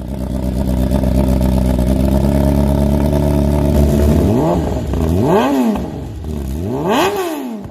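Motorcycle engine idling steadily, then blipped three times in the second half, each rev rising and falling in pitch, the last two climbing higher than the first.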